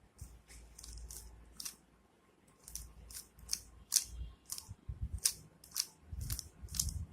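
Rubik's cube layers turned by hand in quick succession while an F2L algorithm is carried out: about fifteen sharp plastic clicks at uneven spacing, with a short pause about two seconds in.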